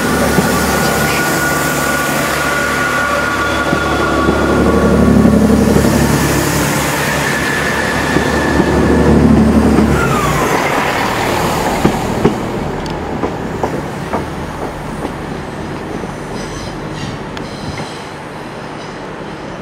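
Class 165 diesel multiple unit pulling away, its underfloor diesel engines running loud under power. About halfway through the engine note drops off, and a few wheel clicks over rail joints follow as the train fades into the distance.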